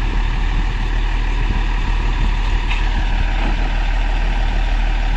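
The diesel engine of a railway utility track vehicle (UTV) running steadily at idle: a constant low hum with no change in speed.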